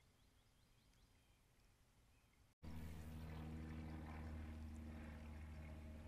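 Near-silent yard ambience with a few faint, distant bird chirps. After a brief dropout about two and a half seconds in, a steady low mechanical hum begins, along with a faint trickle of water from the bird-bath fountain.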